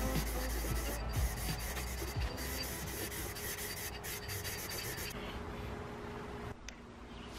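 Aerosol spray can hissing in spurts with brief breaks, stopping about five seconds in.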